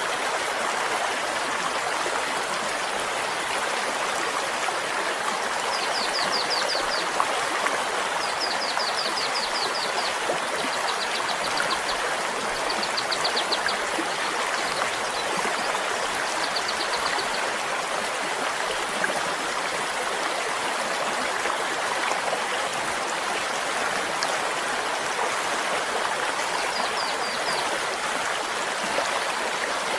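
A flowing stream: a steady, unbroken rush and babble of water. Several short, high trills of quickly repeated notes come over it, clustered between about 6 and 17 seconds in and again near the end.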